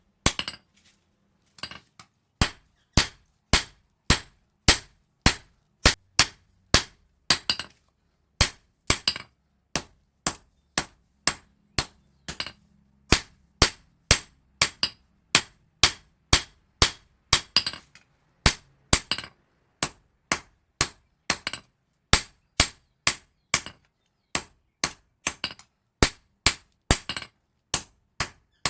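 Hand hammer striking a steel leaf spring on an anvil while it is forged into a knife blade. The blows come steadily, about two a second, each with a short metallic ring, with a few brief pauses.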